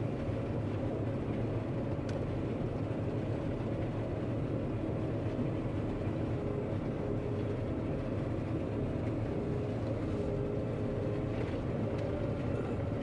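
John Deere 9500 combine running steadily: a constant mechanical drone with a faint hum.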